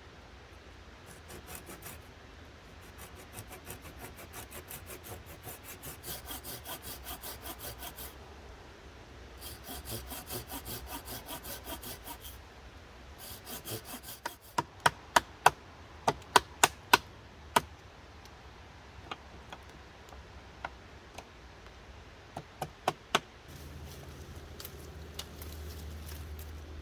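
Handsaw cutting through a wooden limb with quick, even back-and-forth strokes in several runs, followed by a string of sharp, loud knocks.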